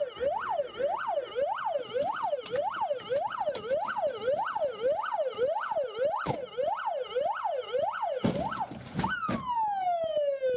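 Police car siren in fast yelp mode, sweeping up and down a little over twice a second. About eight seconds in it breaks off with a short harsh blast, then gives one long falling wail.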